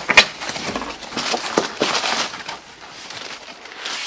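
Large cardboard box being opened by hand: flaps knocking and scraping, then crumpled brown kraft packing paper rustling and crinkling as it is pulled out. A sharp cardboard knock just after the start is the loudest sound, with more irregular crackles about one to two seconds in.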